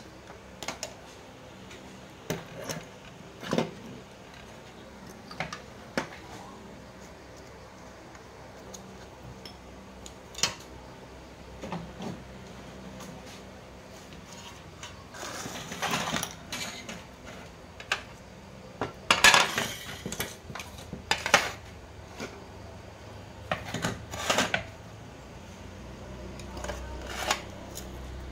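Scattered clicks, knocks and metallic clattering as circuit boards and metal parts are handled and set down on a wooden workbench, with a run of louder rattling in the second half.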